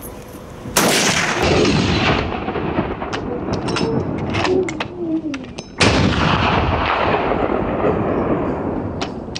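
Hunting gun fired twice, about five seconds apart. Each shot is a sudden crack followed by a rolling echo that takes several seconds to die away.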